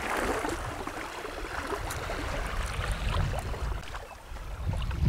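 Wind rumbling on the microphone outdoors, gusting stronger about three seconds in and again near the end, over a steady hiss.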